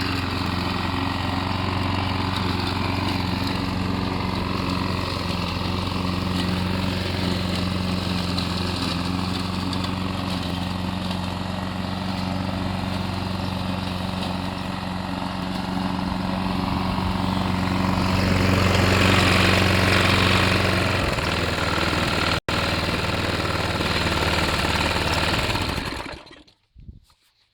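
Small engine of a homemade remote-controlled lawn mower running steadily, growing louder for a few seconds past the middle, then dying away near the end.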